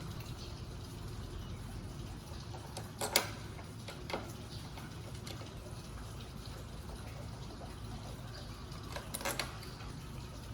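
Steady low background hum with a few short clicks or knocks: one about three seconds in, a fainter one a second later, and a small cluster near the nine-second mark.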